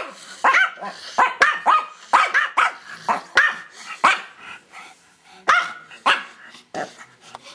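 Small dogs barking in short, sharp yaps, about a dozen, close together at first and thinning out in the last few seconds: a squabble between two dogs over a toy.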